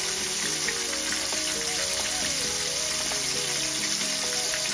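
Breaded catfish fillets sizzling and crackling steadily as they deep-fry in hot vegetable oil in a pan.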